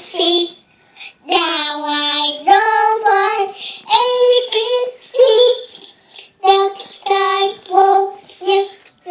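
A young child singing in a high voice, phrases of long held notes with short breaths between.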